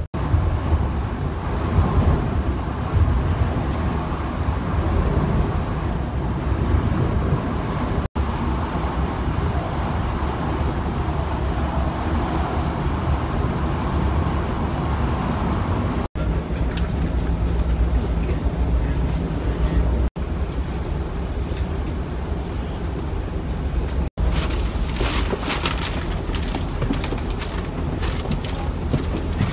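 Cabin noise of a fast passenger ferry under way: a steady low engine rumble with water and wind hiss, broken off by several sudden cuts. For the last few seconds the sound turns brighter and hissier, with crackles.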